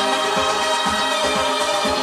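Music played back from cassette on a Nakamichi BX-100 deck and heard through loudspeakers: held notes over a steady beat.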